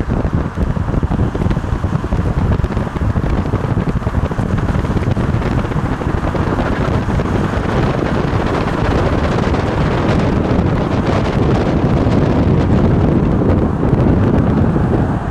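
Wind buffeting the microphone of a camera filming from a moving car, a dense low rumble with road noise under it, steady throughout and a little louder in the second half.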